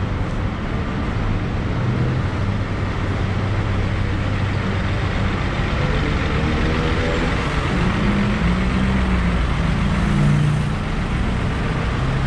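City road traffic: a steady rush of passing motor vehicles with a low engine hum that shifts as they go by.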